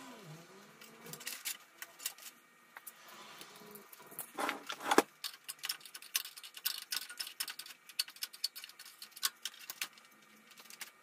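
Hands working inside a desktop PC case around the CPU cooler: a run of small plastic and metal clicks and rattles, busiest and loudest from about four seconds in.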